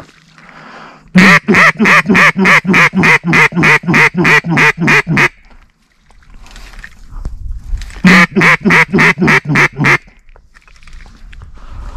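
Mallard duck call blown close by: a long run of about sixteen loud quacks at roughly four a second, then after a pause a shorter run of about nine, a hunter's calling to draw ducks toward the decoys.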